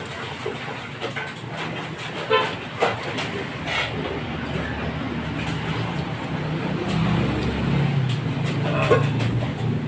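A low mechanical rumble that grows louder from about halfway through, with scattered short clicks and knocks.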